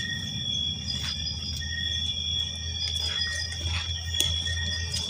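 Night-time chorus of crickets and other insects: several steady, high-pitched trills at different pitches keep on without a break. Underneath is a low rumble, with a few faint rustles of movement through vegetation.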